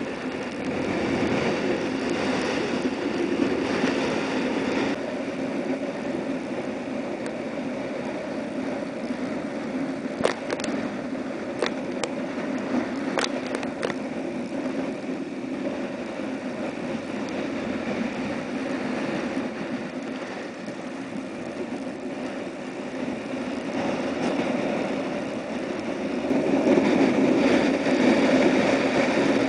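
Hurricane-force wind and rough surf breaking on a rock breakwater: a steady rushing noise that swells louder near the end, with a few sharp clicks around the middle.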